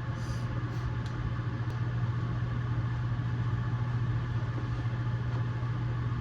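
A steady low mechanical hum with an even background rush that keeps a constant level.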